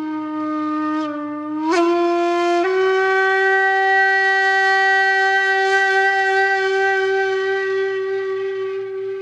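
Outro music: a single long horn-like note that steps up in pitch twice in the first few seconds, then holds steady and starts to fade near the end.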